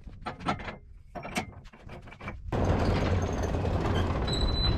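Metal lift parts clinking and clicking as they are handled, a few sharp strikes with a brief ring. From about halfway through, a utility golf cart runs steadily as it is driven onto the 2-post vehicle lift, with a thin high whine near the end.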